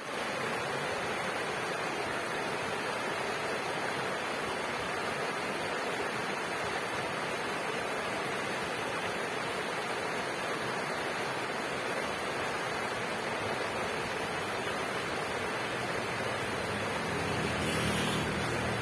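River water flowing, a steady rushing that swells slightly near the end.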